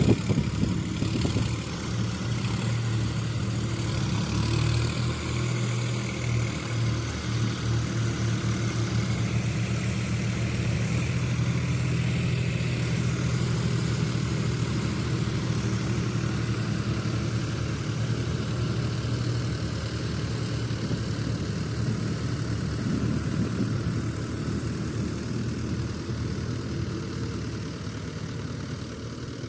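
Heavy vehicle engine running steadily at an even, low speed, fading a little near the end.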